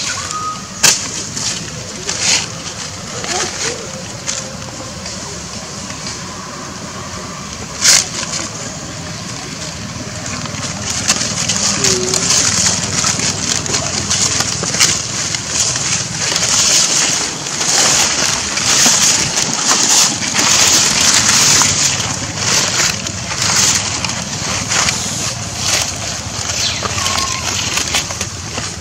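Continuous rustling, crackling outdoor noise that grows louder about eleven seconds in, with a few sharp clicks in the first eight seconds and a couple of brief faint squeaks.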